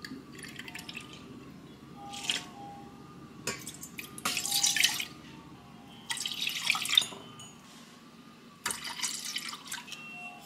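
Liquid poured in several short pours, splashing into a measuring cup and a stainless steel saucepan: soy sauce, then a second clear liquid.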